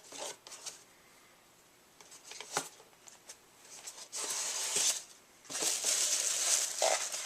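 Packaging being handled: a few light clicks, then two spells of crinkly rustling, the second starting a little past halfway through.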